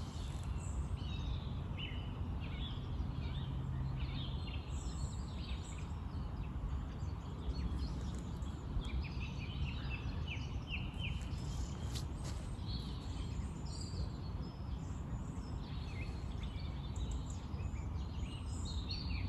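Small birds chirping and singing in scattered short phrases over a steady low background rumble.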